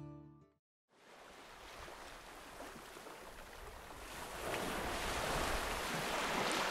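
The tail of background music stops, then after a brief silence a steady rush of water and wind comes up, growing louder from about four seconds in.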